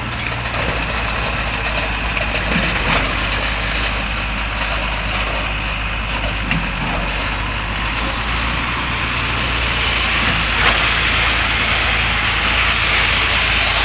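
Concrete pump truck's engine running steadily under a dense hiss, which grows louder over the last few seconds.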